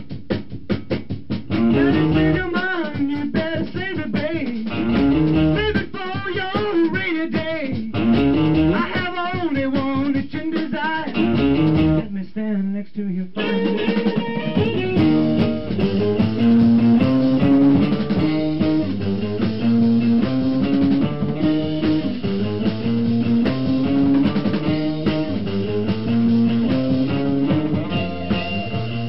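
A rock band's practice recording: guitar, bass guitar and drums playing a blues-rock number. About twelve seconds in the guitars drop out for a moment, leaving only the low end, then the band comes back in on a repeating riff.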